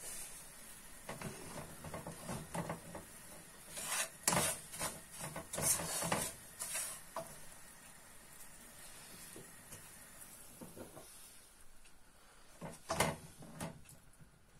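Wooden spoon stirring and scraping toasted semolina for halva around a metal pan, in bursts of scraping strokes about four to seven seconds in, with a few knocks of a utensil against the pans near the end.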